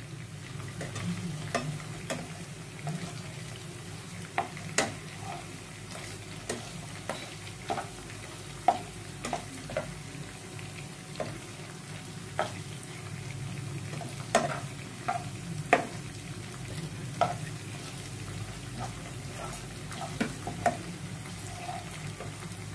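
Ginger-garlic paste, slit green chillies and curry leaves frying in hot oil in a non-stick kadai. A steel spatula stirs through them, clicking and scraping against the pan at irregular moments.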